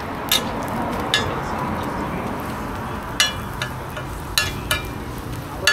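Roti frying in oil on a large flat iron griddle, a steady sizzle, with a metal spatula clinking sharply against the pan about six times as it flips and presses the flatbreads.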